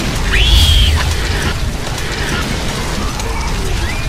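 A film explosion sound effect: a sudden boom with a heavy low rumble, then dense crackling noise. A short high tone rises and falls during the first second.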